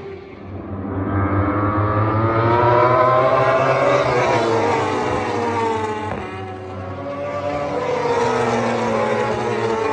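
Several superbike racing motorcycles at high revs passing on track, their engine notes climbing and falling in pitch. The sound swells loudest about three seconds in and again near the end.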